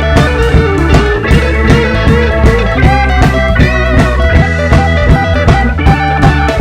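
Band playing an instrumental blues-rock passage: electric guitar lead over bass and drums with a steady beat.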